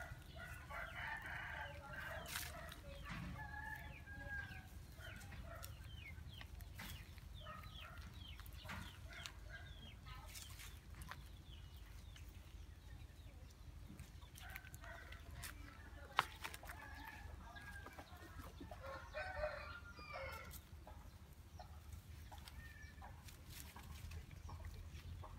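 Faint animal calls in two spells, one near the start and another about fifteen to twenty seconds in, over scattered small clicks and rustles, with one sharp click about sixteen seconds in.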